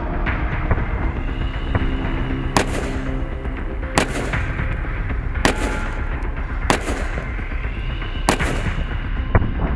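AK-pattern rifle firing single shots, about one every second and a half, each with a short echoing tail. Background music with held notes plays underneath.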